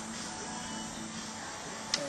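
Music playing steadily, with one sharp click just before the end.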